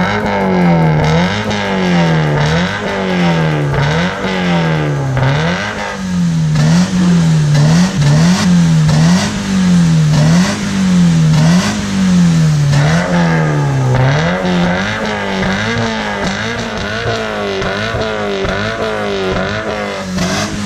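Toyota GT86's 2.0-litre flat-four engine being revved through an aftermarket valve-controlled exhaust with Akrapovic tips. The pitch rises and falls over and over in quick, regular blips, about once a second.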